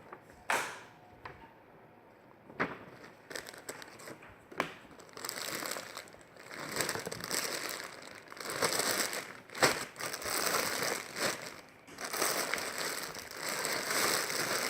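Plastic packaging crinkling and rustling in spurts, as a jigsaw puzzle's wrapping or bag of pieces is handled and opened, with scattered clicks and taps in the first few seconds.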